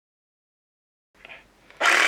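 Dead silence, then faint small handling sounds, then near the end a cordless reciprocating saw's motor switches on and runs with a loud, steady high whine.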